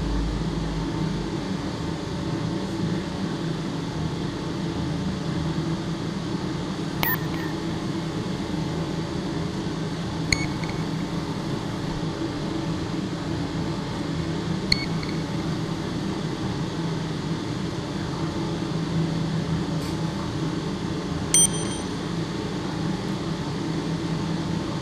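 Ambient soundtrack: a steady humming drone made of several held low tones, with a handful of short, high pings scattered through it.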